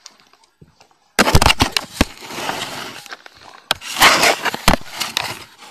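Loud crackling rustle of notebook paper right against the microphone, with sharp knocks as the phone is handled. It comes in two spells, starting about a second in and again near the middle.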